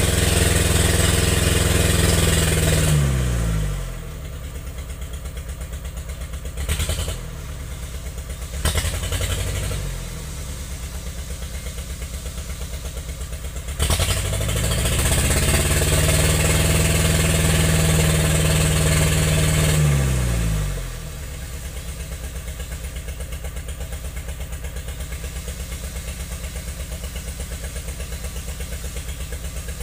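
Logging tractor's engine held at high revs, then dropping to a pulsing idle about three seconds in. Two short knocks come while it idles. About fourteen seconds in it revs up again, holds for some six seconds, and falls back to idle.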